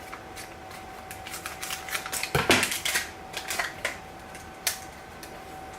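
Hands handling and opening blind-bag packaging for an enamel pin: a scatter of small clicks and crinkles, with a louder rustle about two and a half seconds in.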